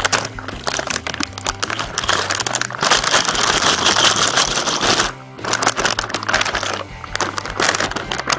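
Background music with a steady bass line, over the crinkling of a foil-lined snack bag as hands hold it open and move it about. The crinkling is heaviest from about two to five seconds in.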